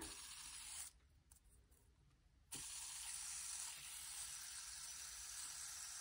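Handheld fidget spinner whirring faintly on its bearing, a steady thin hiss. It falls away about a second in, then comes back with a light click about two and a half seconds in as the spinner is flicked again.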